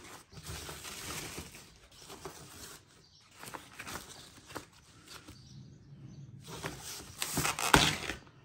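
Rustling and crinkling of a thin foam protective bag being handled and peeled back off a computer monitor, in irregular bursts, loudest near the end.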